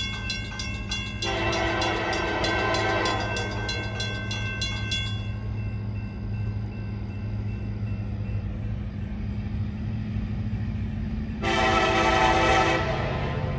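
Grade-crossing bell ringing in rapid, even strikes, stopping about five seconds in. The approaching KCS SD70ACE diesel locomotive sounds its horn in a two-second blast about a second in and a shorter blast near the end. The locomotive's engine rumbles low throughout as it approaches under power.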